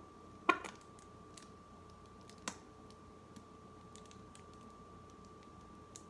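A few light clicks and knocks of kitchen items being handled: the sharpest about half a second in, another about two and a half seconds in, and fainter ticks in between, over a faint steady hum.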